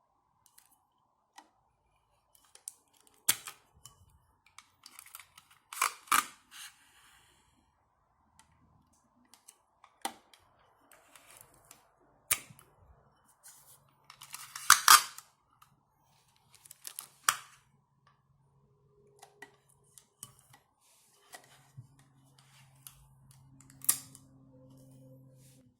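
Scotch tape being laid across the mouth of a vase in a crisscross grid: sharp snaps and clicks every few seconds as strips are pulled off the roll, cut and pressed down, with quiet handling between.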